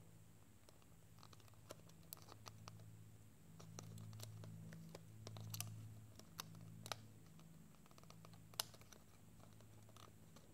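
Faint, scattered small clicks and scratches of fingertips working an iPad digitizer's ribbon cable into its connector, over a faint low hum.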